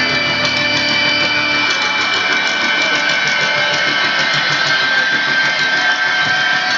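Background music with long held notes, steady in level throughout.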